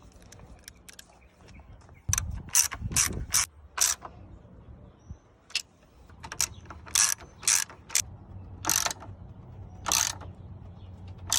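Ratchet wrench clicking in short bursts about half a second apart as it runs down a 10 mm radiator mounting bolt, in two runs of strokes.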